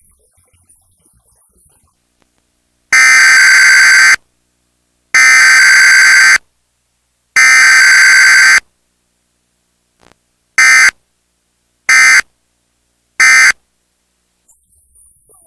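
Emergency Alert System SAME data bursts: three harsh, buzzy digital bursts of about a second each, then three short blips. This is the alert header sent three times, followed by the three end-of-message bursts.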